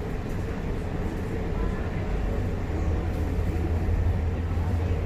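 Steady running noise heard inside the passenger cabin of a Chinese-made MTR Tuen Ma Line train travelling between stations: a continuous low rumble, growing a little louder in the second half.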